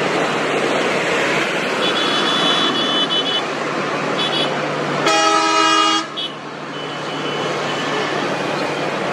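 Highway traffic: engines and tyres of passing trucks and motorbikes, with a loud vehicle horn blaring for about a second midway, and a thinner high toot before it.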